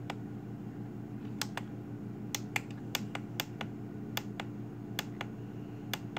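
Repeated clicks of the push buttons on a FrSky Taranis X9D Plus radio transmitter as its menu pages are stepped through: about a dozen sharp clicks, mostly in quick pairs, over a steady low hum.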